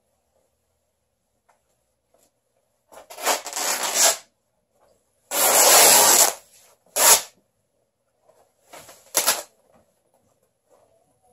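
Worn-out cloth pants being ripped apart by hand. There are four bursts of tearing fabric, and the longest and loudest lasts about a second, just past the middle.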